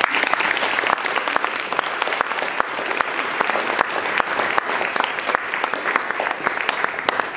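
Audience applauding, a steady mass of handclaps.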